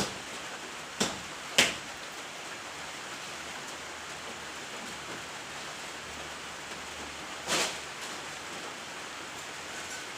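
Steady hiss of rain falling, with three sharp knocks: two close together about a second in and one, slightly longer, near the end.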